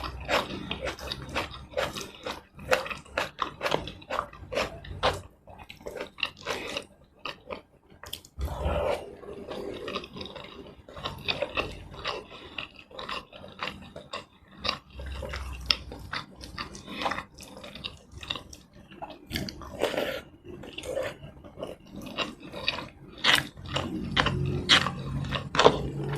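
Close-miked eating sounds: a person chewing and smacking through mouthfuls of tomato rice and chicken in red sauce. The clicks and wet mouth sounds come irregularly and densely, with short pauses between bites.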